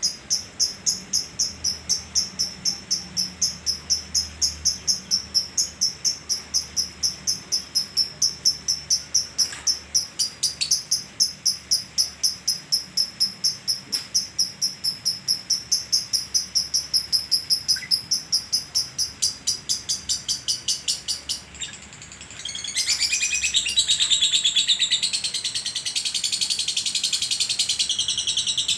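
Lovebird singing its long 'ngekek': an unbroken run of shrill, rapidly repeated notes, about four a second. Near the end it breaks off for a moment, then resumes as a denser, faster chatter.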